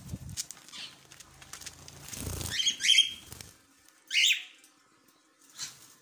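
Wings of a pet cockatiel flapping as it flies in and lands, with a whoosh about two seconds in. Two short, loud, high bird chirps follow, near three and four seconds in.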